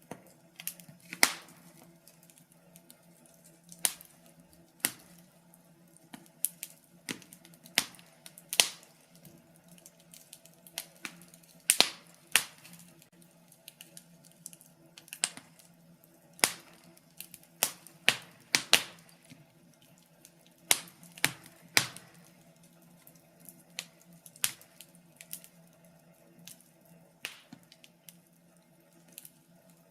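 Wood fire in a fireplace crackling: irregular sharp pops and snaps, a few louder ones among many small ticks, over a faint steady hum.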